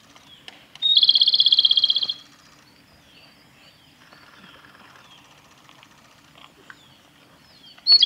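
Male Japanese robin singing. Twice it gives a loud song phrase: a brief high opening note, then a rapid trill lasting just over a second. The second phrase begins near the end. Faint calls of other birds carry on in between.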